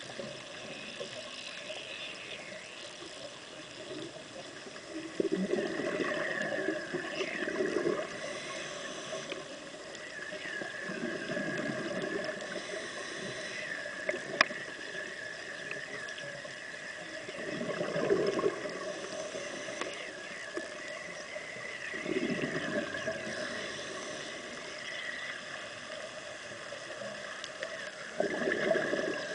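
A scuba diver's regulator breathing, heard underwater: a bubbling rush of exhaled air about every five seconds over a steady underwater hiss. A single sharp click comes about halfway through.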